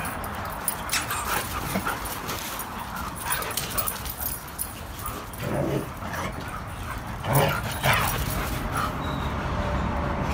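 Dogs play-fighting, giving short whines and yips in irregular bursts that are loudest in the second half.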